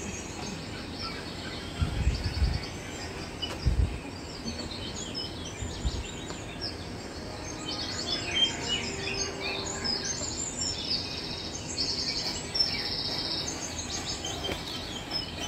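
Small birds chirping and twittering in the background, busiest in the second half, with a few low thumps about two, four and six seconds in.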